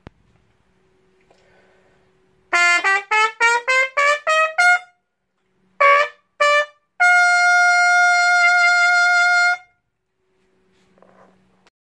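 Trumpet with a mute in the bell playing an ending phrase: a quick rising eight-note scale (sol-la-si-do-re-mi-fa-sol), then two short mi notes and a long held sol. The phrase starts about two and a half seconds in.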